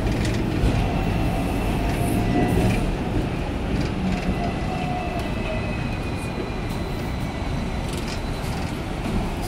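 Hong Kong double-decker tram running along its track, heard from inside: a steady rumble of wheels and running gear on the rails. Thin high whining tones slowly fall and fade out about halfway through.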